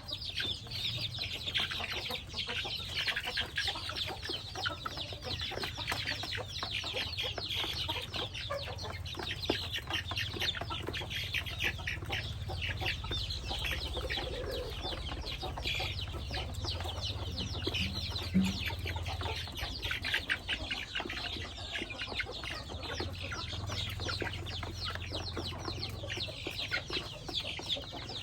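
Young chickens peeping continuously, many short high chirps overlapping, with a low steady hum beneath.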